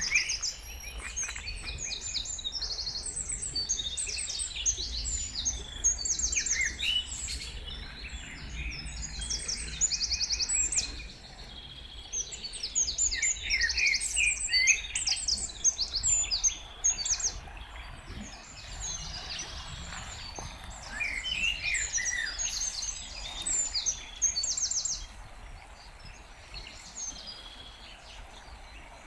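Several songbirds singing at once: overlapping chirps and fast trilled phrases, with a steady low rumble underneath.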